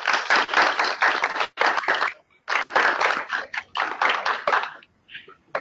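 Applause: a group of people clapping their hands, with a short lull about two seconds in, dying away near the end.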